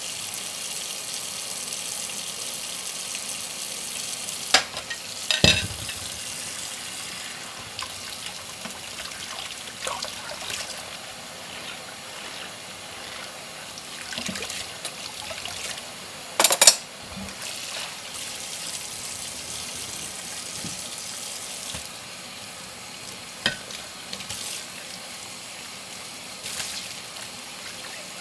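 Dishes being washed by hand in a sink: a steady hiss of water with sharp clinks of dishware now and then, the loudest about five seconds in and again about sixteen seconds in.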